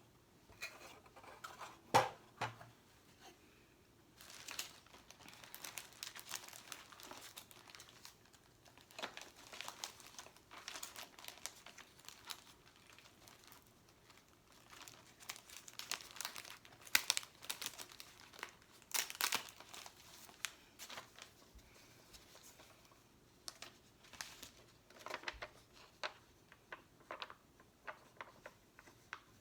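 Close-up crinkling and rustling of sticker sheets and backing paper being handled, with sticky peeling sounds, in irregular clusters of small crackles and a sharp tap about two seconds in.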